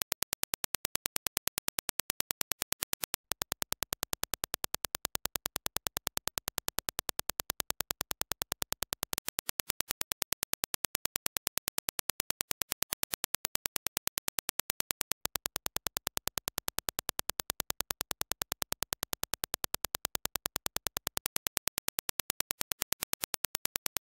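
Dirac impulse test signal: a rapid, even train of sharp clicks, about seven a second, used to judge a headphone's transient speed. A faint low hum comes and goes in stretches of about six seconds.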